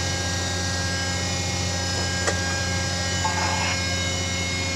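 Ship's hydraulic deck crane with its hydraulic pump running: a steady machinery hum with several constant tones, broken by a single sharp click a little past two seconds in.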